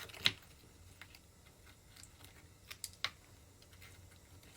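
A few sparse, sharp clicks and light taps of small hard objects being handled, the loudest about a quarter second in and two more close together near three seconds.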